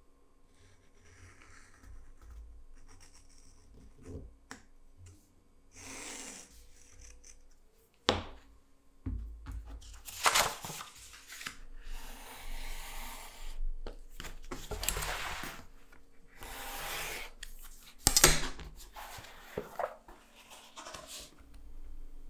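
Utility knife blade slicing through vegetable-tanned leather along a steel ruler in several long rasping strokes, with two sharp knocks among them. Before that, fainter scratching of a scribe tracing a pattern on the leather.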